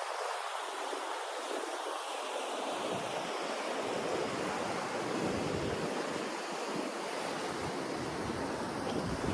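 Ocean surf breaking and washing up the shore in a steady wash of noise, with wind gusting on the microphone from about three seconds in.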